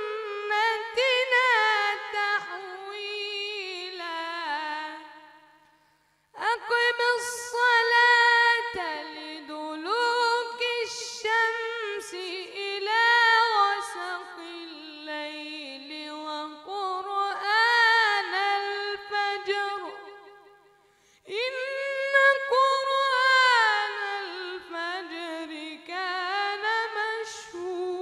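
A boy reciting the Quran in the melodic mujawwad style, unaccompanied: long held notes with wavering melismatic ornaments. Three drawn-out phrases, with breaths about six seconds and about twenty-one seconds in.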